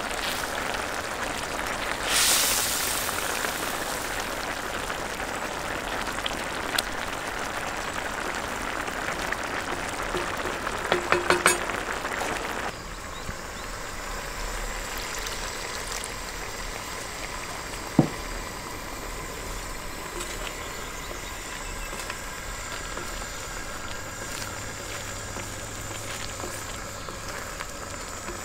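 Tomato sauce sizzling and bubbling in a wide steel pan over a gas burner, stirred with a wooden spatula. A brief louder hiss about two seconds in, a quick run of taps near the middle, and a single sharp knock later on.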